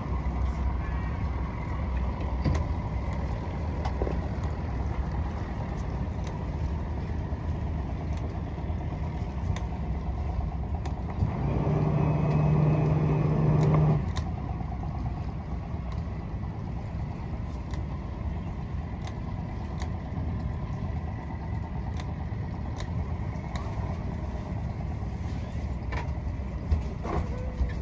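Speedboat engine running at low speed, a steady low hum, growing louder for about two seconds near the middle before settling back.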